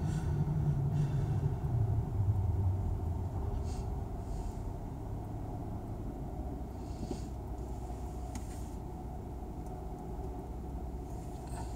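Low rumble of engine and road noise inside a car's cabin as it slows down, settling to a quieter, steady engine idle once it stops at a red light.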